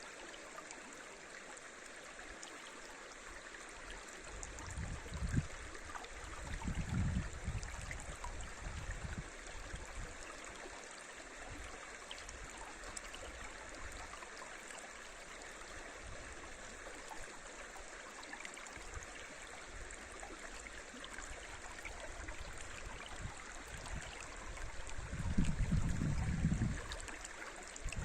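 A river rushing over shallow rapids, a steady even wash of water. A few low rumbles rise under it about five to nine seconds in and again near the end.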